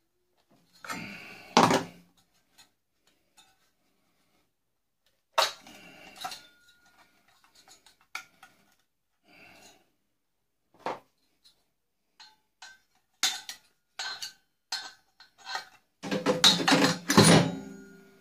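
Metal parts of a microwave being pulled apart by hand and with pliers: scattered clinks and knocks of sheet steel and tool, with a denser stretch of clattering near the end.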